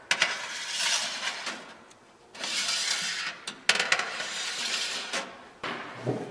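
Stainless-steel wire dehydrator rack scraping along the metal rails of a Cosori dehydrator as it is pushed in, in three long slides with metal clinks between them, then a duller knock near the end.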